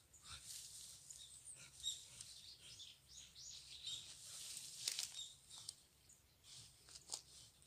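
Faint crackling and rustling in dry brush and leaves, scattered sharp ticks over a soft high hiss, with a few faint high bird chirps in the first half.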